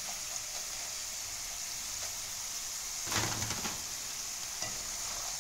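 Potato fries sizzling steadily as they deep-fry in hot oil, nearly done. About three seconds in, a brief louder sound rises over the sizzle.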